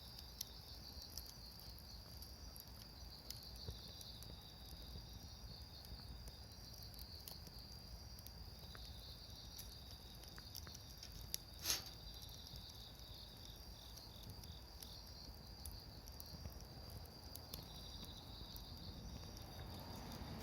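Insects chirping steadily in a high, pulsing drone, with faint campfire crackles and one sharper pop from the fire about halfway through.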